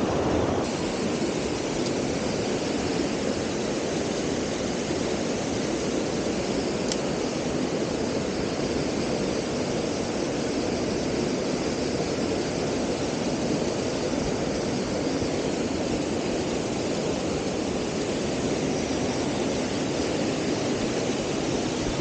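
Steady, even rush of a waterfall and the white-water rapids of a mountain stream.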